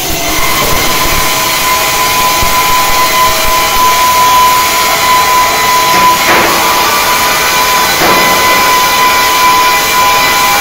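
Loud, steady machinery noise with a constant high whine, with two brief swishes about six and eight seconds in.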